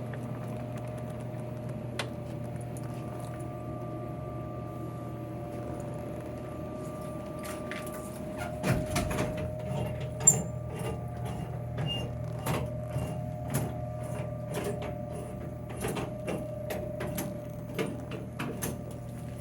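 Steady electrical hum of running vending machines. From about halfway through, irregular clicks and knocks join it, with one sharp click a little after that.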